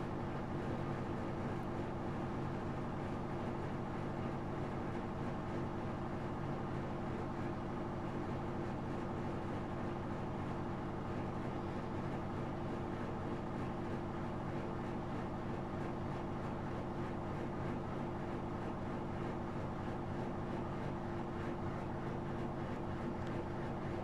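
Whirlpool FSCR90425 front-loading washing machine in its 800 rpm spin with an unbalanced load: the drum and motor running steadily with an even hum and a held tone.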